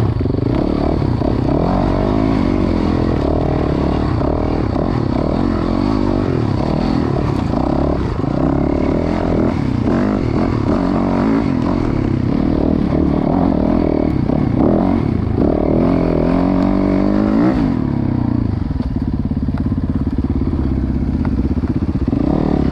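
Dirt bike engine heard from on board, revving up and down in quick changes of pitch as the bike works over a rocky trail, with some clatter. About three-quarters of the way through, the revs fall away and the engine settles to a lower, steady idle.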